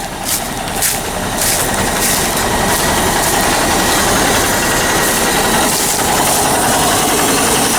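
A farm vehicle's engine running steadily, with a few sharp clicks or rattles in the first few seconds.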